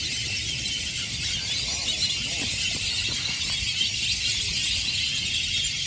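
A large flock of black-bellied whistling ducks calling together: a continuous, dense chorus of high squealing whistles.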